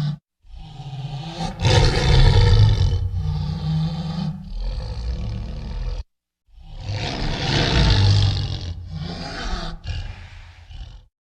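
Tigon (lion–tiger hybrid) roaring in two long bouts, each cut off abruptly, the second starting about six and a half seconds in.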